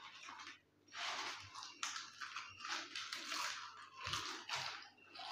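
Lay's potato chips crunching as they are bitten and chewed, in quick irregular bursts several times a second.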